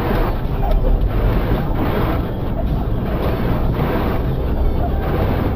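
Blizzard wind buffeting the microphone: a steady, rumbling rush of noise that swells and eases slightly.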